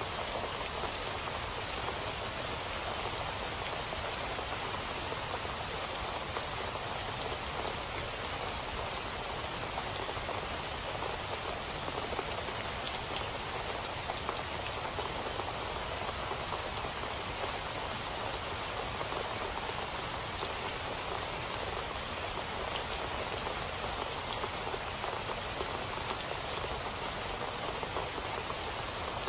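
Heavy rain splashing into standing water pooled on a flat surface: a steady, dense hiss of countless small drop impacts.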